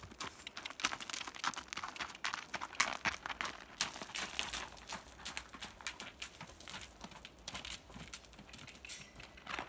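Hoofbeats of a pinto horse trotting and cantering on gravelly dirt footing, a quick irregular run of thuds and crunches that is busiest in the first few seconds.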